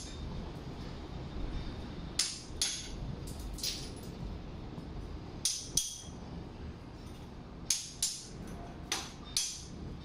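Hammer tapping a new soundproofing window frame to seat it in its opening: about ten sharp, irregular taps, several in quick pairs.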